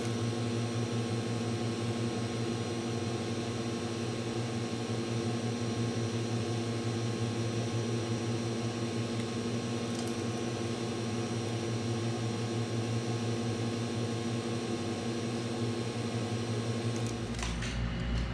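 A small fan-driven machine running with a steady pitched hum over a light hiss. A deeper rumble joins near the end.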